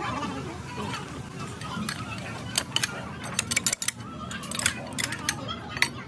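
Steel tools and parts knocking and clinking against each other: a run of irregular sharp metallic clicks, thickest a little past the middle.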